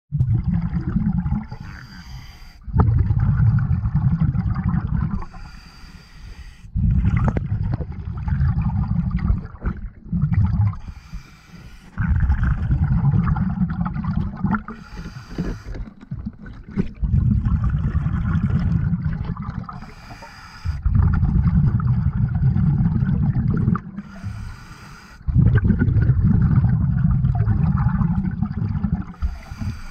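A scuba diver breathing through a regulator underwater. Each breath is a short hissing inhale followed by a low, bubbling exhale lasting about three seconds, repeating about every four to five seconds, about seven breaths in all.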